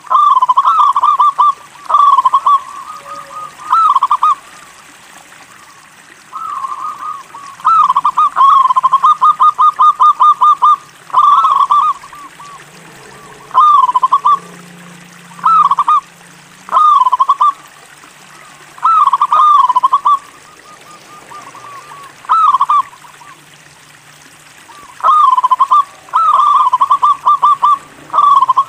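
Zebra dove (local perkutut) singing: repeated phrases of short cooing notes, some running on into long fast rolling series, with pauses of a second or two between phrases.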